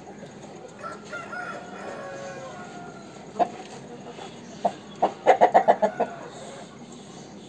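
Aseel rooster: a faint drawn-out crow in the background about a second in, then a few sharp clucks, ending in a quick run of about seven loud clucks in under a second.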